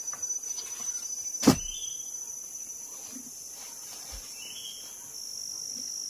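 Steady high-pitched insect drone, with a single sharp knock about a second and a half in and two short rising chirps.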